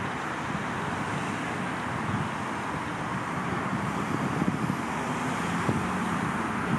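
Wind buffeting the camera's built-in microphone with irregular low rumbles, over a steady wash of distant road traffic noise.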